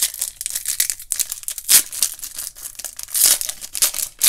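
Foil wrapper of a Panini Donruss Optic basketball card pack being torn open and crinkled by hand: irregular crackling with a few sharper, louder rips, the biggest about a second and a half in and again near the end.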